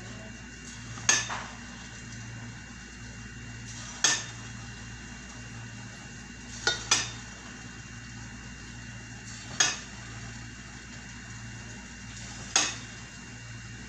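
Sharp metallic clinks of a kitchen utensil against cookware, about one every two to three seconds, with one quick double clink, over a steady hiss and a low hum.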